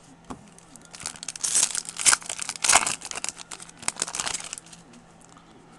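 Foil baseball-card pack wrapper crinkling and tearing as it is pulled open by hand, a dense run of crackles starting about a second in and lasting about four seconds.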